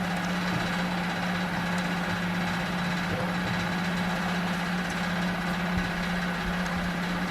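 A steady, low mechanical hum that does not change, with faint scattered ticks.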